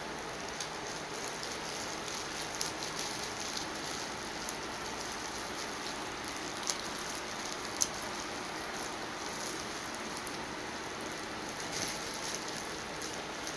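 Plastic-gloved hands peeling boiled shellfish: faint crackling and sticky handling sounds with a few sharper clicks of shell, the loudest about eight seconds in, over a steady hiss.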